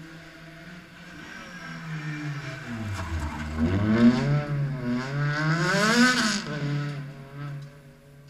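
A Honda Civic rally car's four-cylinder engine coming off the throttle into a gravel hairpin, then revving hard out of it twice with a gear change between. Gravel sprays loudest about six seconds in, and the engine fades as the car pulls away.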